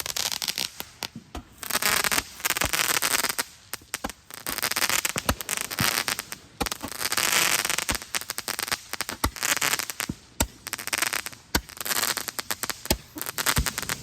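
Consumer fireworks crackling and popping in dense bursts lasting a second or two each, with single sharp bangs in between.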